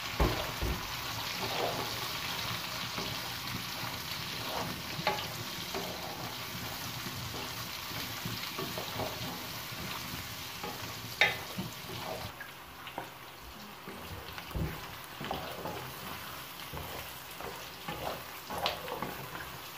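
Chopped onion, capsicum, carrots and meat sizzling in hot oil in a stainless steel pan, stirred with a wooden spatula that scrapes and knocks against the pan now and then. The sizzle gets a little quieter about two-thirds of the way through.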